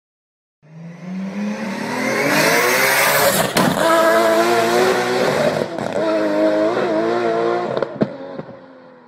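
Car sound effect: an engine revving up, rising in pitch, then a wavering tyre squeal that fades out near the end.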